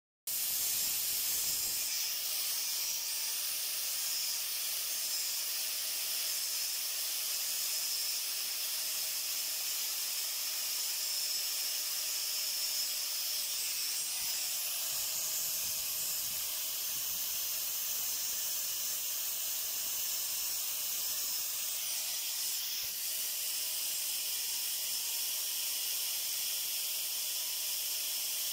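Angle grinder running steadily, grinding a small metal part held against the disc: a continuous high-pitched hiss over a faint motor whine.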